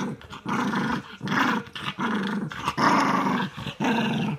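Small terrier growling in a run of short growls, each under a second, with a chew bone in its mouth while a hand reaches toward it.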